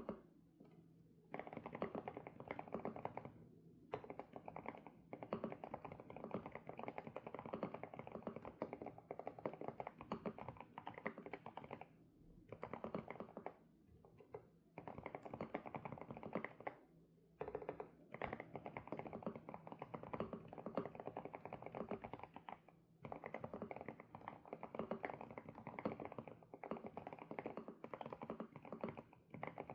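SPM PL108W mechanical keyboard with Sunset switches being typed on in fast runs of keystrokes, with a few brief pauses between runs.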